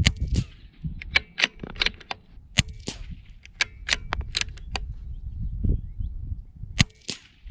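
Quick series of sharp metallic clicks and clacks from handling a CZ 457 bolt-action .22 LR rifle at its action, in clusters a fraction of a second apart, the loudest right at the start and about a second before the end.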